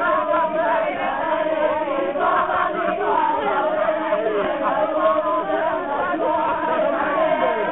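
Group chanting: many voices singing together, overlapping without a break.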